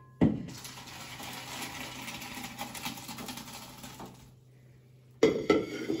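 Hot pasta water and pasta poured from a stainless stockpot into a metal colander, splashing and pattering for about four seconds after a knock of metal on metal as the pour begins. A louder clatter follows near the end.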